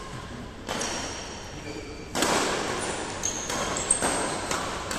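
Badminton rackets striking a shuttlecock during a doubles rally, the loudest hit about two seconds in, with short high squeaks of shoes on the synthetic court mat near the middle of the stretch.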